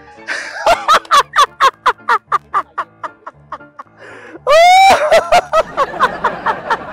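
A man's loud, exaggerated laughter in rapid ha-ha-ha bursts. About four and a half seconds in it breaks into a long, high-pitched shriek, then the rapid laughing goes on. Background music plays underneath.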